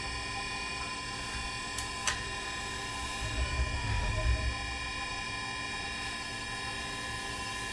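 Tormach 1100MX CNC mill's spindle running steadily at about 2500 RPM, a quarter-inch two-flute drill boring holes in Kydex sheet, with a steady whine and a low rumble that swells around four seconds in. A couple of sharp clicks about two seconds in.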